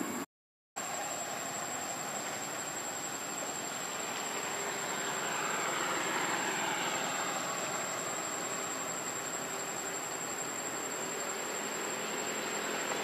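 Steady outdoor background noise with a thin, constant high whine, swelling about five to seven seconds in with a falling pitch, like a vehicle going by. A brief dropout to silence just after the start.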